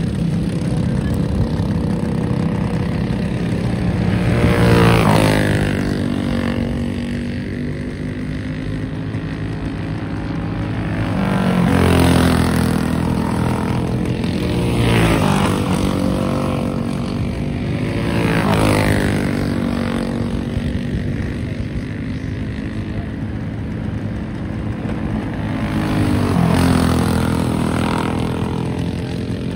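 Dirt-track racing kart engine running hard at speed, its note rising and falling as it laps. Several times the engine passes close by, swelling in loudness with the pitch sweeping down as it goes past.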